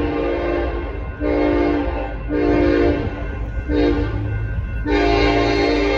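A Union Pacific SD70ACe locomotive's air horn sounding a series of blasts for the grade crossing as the train approaches. There are a few blasts of about a second each with short gaps, a brief one about four seconds in, and a long blast starting near five seconds.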